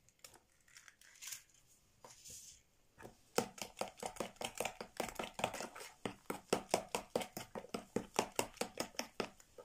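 A fork beating eggs into kefir batter in a plastic bowl, ticking against the bowl in a quick steady rhythm of about five strokes a second. Before the beating starts, a few faint soft sounds as an egg is cracked and emptied in.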